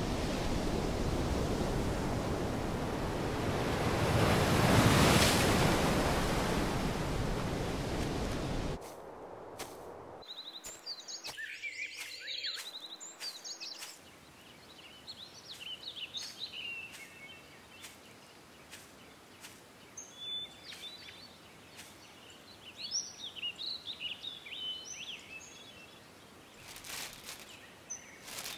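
A loud rushing noise that swells about five seconds in and cuts off suddenly about nine seconds in. Then small woodland birds chirping and singing over a quiet background, with a few sharp clicks near the end.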